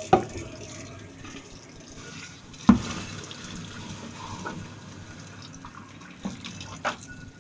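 Kitchen tap running into a stainless steel sink while a saucepan is rinsed and scrubbed with a sponge. A sharp knock of the pan against the sink comes about two and a half seconds in, with a few lighter knocks near the end.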